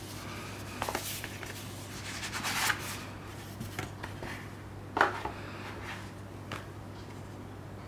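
Cloth-gloved hands handling a cardboard Blu-ray slipcase and paper insert: card rustling and sliding in short bursts, with a sharp tap or scrape about five seconds in. A steady low hum runs underneath.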